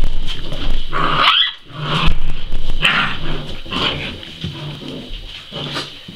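Seven-week-old Entlebucher Mountain Dog puppies play-fighting, growling and giving short barks. The cries come about once a second and are loudest in the first few seconds, then quieten.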